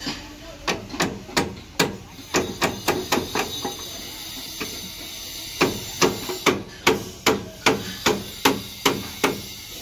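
Hammer striking steel formwork: sharp metallic blows about two to three a second, in two runs with a pause of about two seconds between them.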